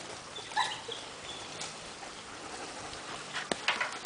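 Dogs playing on dirt: a few faint, short high-pitched yips and whines, with a couple of sharp clicks near the end.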